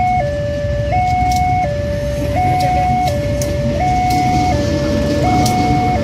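Railway level-crossing warning siren sounding its two-tone alarm, a standard alternating siren that replaced the crossing's earlier spoken-announcement alarm. It switches between a higher and a lower pitch, each held for about three-quarters of a second. A low rumble runs underneath as the train approaches.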